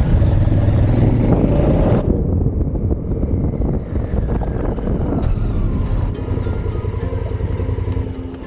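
Adventure motorcycle running on the move, with wind noise on the microphone. The higher frequencies drop out abruptly about two seconds in and return about five seconds in.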